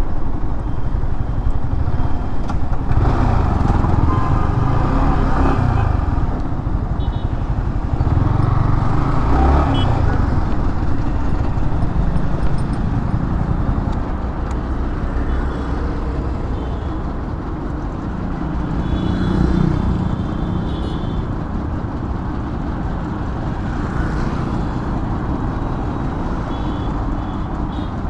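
Yamaha R15M's single-cylinder engine running, its note rising and falling several times as it is revved.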